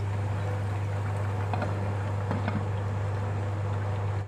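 Whole chicken deep-frying in hot oil in a pot, a steady sizzling and bubbling over a steady low hum. A couple of light knocks partway through as a glass lid is set on the pot.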